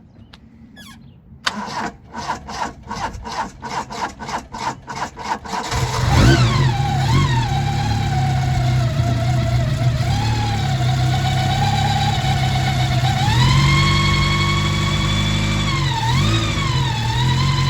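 Toyota 2E 1.3-litre four-cylinder engine cranked over on the starter for about four seconds, catching and flaring up, then settling into a steady idle. A whine from the newly fitted Gilmer belt drive rises and falls with engine speed. The idle lifts about two-thirds of the way through and dips briefly near the end.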